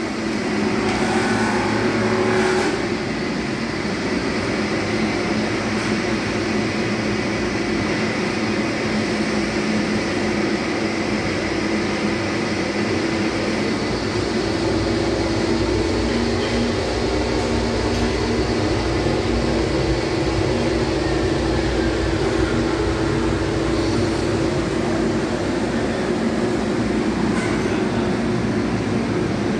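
Industrial fan of a powder-coating installation running steadily: an even rushing of air with a low hum underneath.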